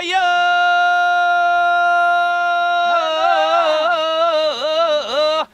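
A man singing a traditional Korean rice-paddy weeding song (non-maeneun sori). He holds one long steady note for about three seconds, then breaks into a wavering, ornamented melody that stops just before the end.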